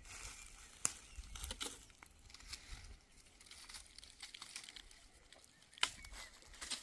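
Faint scattered rustling and crackling clicks, with a sharper click about a second in and another near the end.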